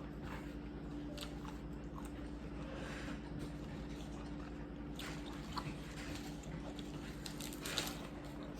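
A person chewing and biting seafood close to the microphone, with scattered soft crunches and wet mouth clicks. A steady low hum runs underneath.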